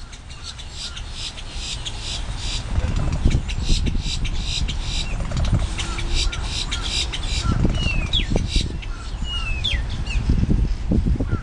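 Boat-tailed grackles calling: a long, rapid series of harsh notes, then a few short whistled notes that slide in pitch near the end, over a low rumble.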